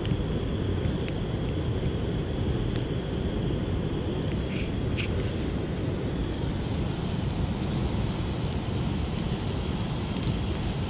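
Steady low rumble of wind and surf, with a few faint clicks as black garlic is cut with a folding knife.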